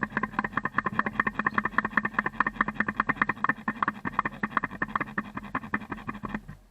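Airsoft electric gun firing on full auto, a long string of rapid shots at well over ten a second with a steady motor hum under it, stopping suddenly near the end.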